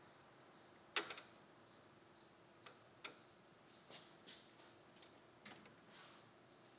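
Faint, scattered clicks and taps of a screwdriver working a screw out of an HP LaserJet 4250's swing plate, with the sharpest double click about a second in.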